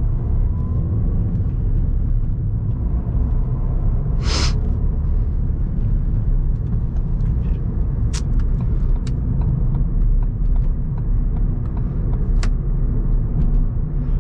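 Steady road and engine rumble inside a moving 2014 Ford New Fiesta Titanium 1.6, with a few sharp clicks and rattles from the dashboard panel, an annoying little noise. There is a brief hiss about four seconds in.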